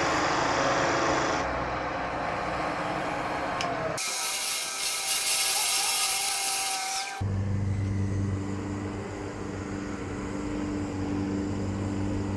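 Wood lathe running while a hand-held chisel cuts a spinning wooden dowel down to size: a rough shearing hiss of the cut over the motor's steady hum. About four seconds in the cutting turns much brighter and sharper for a few seconds, then the motor hum comes to the fore with lighter cutting.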